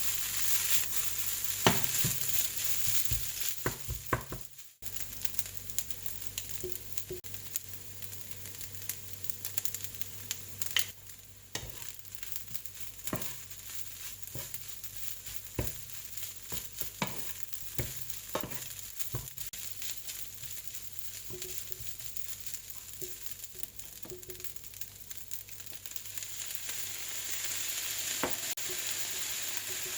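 Chahan fried rice with onion sizzling in a hot pan as it is stir-fried, with a spatula repeatedly scraping and tapping against the pan. The sizzle drops away briefly about five seconds in and grows louder again near the end.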